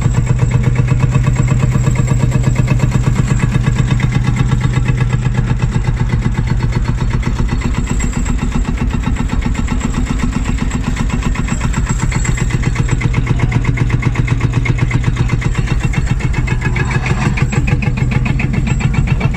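Field Marshall tractor's single-cylinder two-stroke diesel engine idling, a rapid, even run of beats that holds steady throughout.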